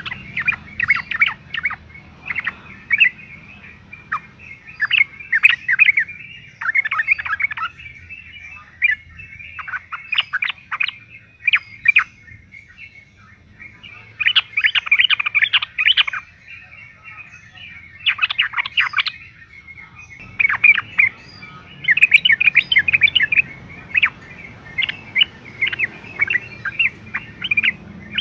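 Yellow-vented bulbul (trucukan) singing in repeated phrases of rapid chirping notes, each phrase lasting a second or two with short pauses between.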